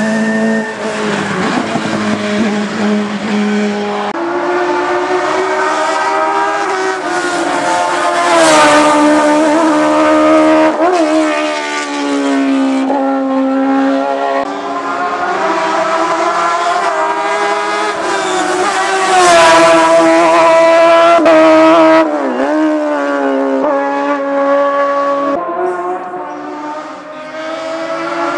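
Hillclimb rally cars' engines at full throttle, the pitch climbing and dropping sharply at each gear change, with some tyre squeal. Several cars are heard in turn, the engine note changing abruptly a few times.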